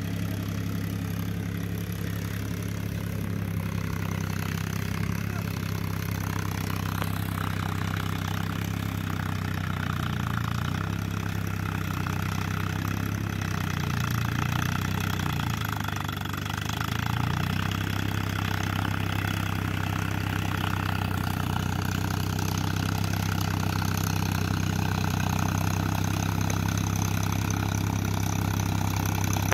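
Powertrac Euro 50 tractor's three-cylinder diesel engine running steadily as the tractor drives. Its engine speed dips and recovers a few times about halfway through.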